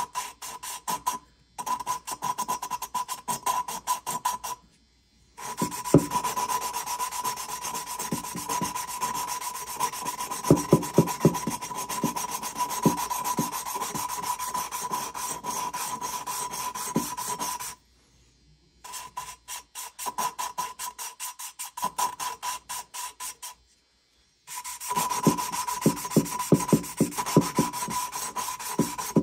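Valve lapping: a new intake valve in a Honda XR200 cylinder head is spun rapidly back and forth on its seat with a suction-cup tool, the valve face grinding against the seat through lapping compound with a gritty rasping. It comes in quick runs of strokes, broken by several short pauses.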